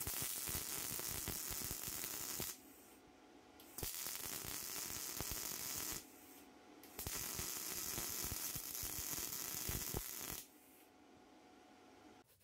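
MIG welder arc crackling in three runs of two to three seconds each, with short pauses between.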